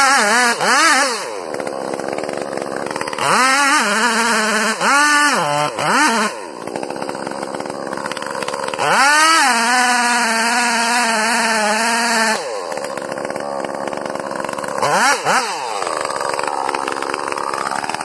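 Two-stroke chainsaw cutting into a large tree trunk, the engine revving up and falling back in several bursts and holding high revs for about three seconds midway, dropping to a lower run between bursts.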